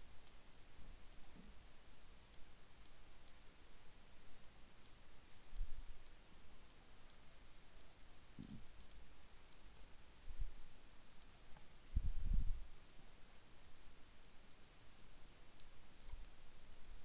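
Computer mouse buttons clicking: faint single clicks at irregular intervals. There are a few low thumps, the loudest about twelve seconds in.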